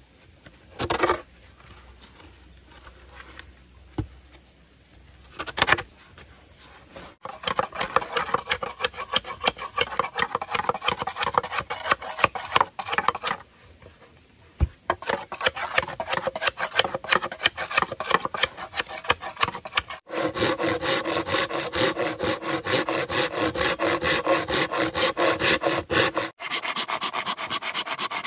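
Fast, repeated scraping strokes on wood. They come in runs of several seconds with short breaks between them.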